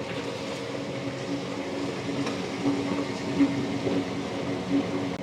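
Large commercial wet grinder running, its motor humming steadily with a few light knocks as the stone rollers turn in the steel drum, grinding soaked rice and urad dal into idli batter.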